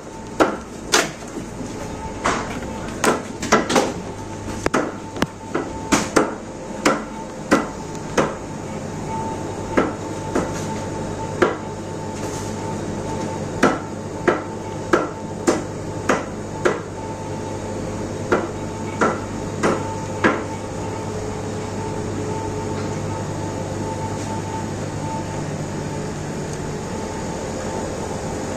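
A butcher's cleaver chopping meat on a block: sharp knocks about one a second in short runs, stopping about twenty seconds in, over a steady hum.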